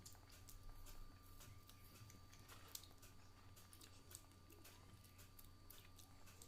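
Near silence: room tone with a faint steady hum and scattered faint small clicks.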